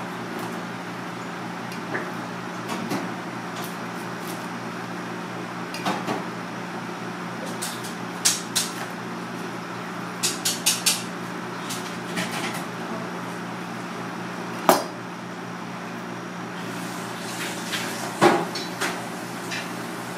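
Kitchen knife cutting a nori-wrapped sushi roll, its blade knocking on a plastic cutting board in scattered sharp clicks: a quick run of four about ten seconds in, the loudest a little before fifteen seconds. A steady low hum runs underneath.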